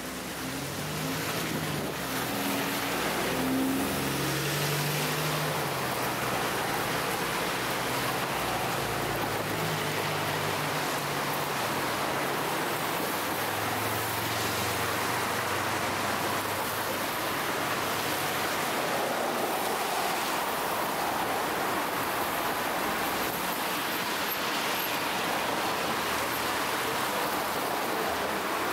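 Busy city street traffic: a steady hiss of vehicles on a wet road, with a bus's diesel engine idling close by. Its low hum shifts and fades out about halfway through.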